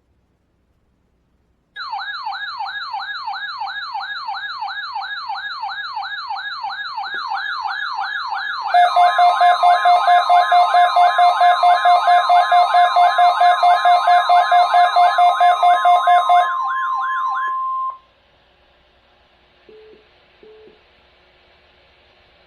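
Weather radio alert: a loud warbling siren tone sweeping up and down about three times a second starts about two seconds in. Partway through, the steady 1050 Hz NOAA Weather Radio warning alarm tone comes in under it with a second steady tone. The warble stops a few seconds before the end, the alarm tone holds briefly after it, and then only faint hiss remains with two short blips.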